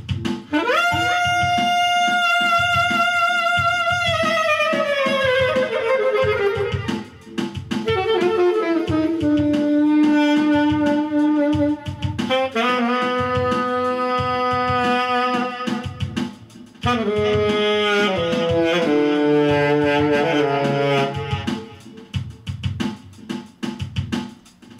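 Saxophone playing long held notes that scoop up into pitch and slide down between them, over a drum beat. The tone is one the player likens to an elephant blowing its horn.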